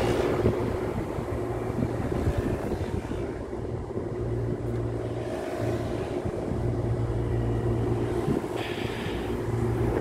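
Air-cooled chiller running: several hermetic refrigeration compressors humming under the condenser fans' steady rush of air, a continuous mechanical drone whose low hum swells and fades as the microphone moves along the unit.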